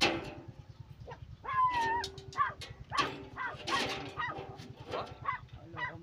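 A string of short pitched animal calls with a longer call about a second and a half in, over a low steady rumble, and a sharp knock right at the start.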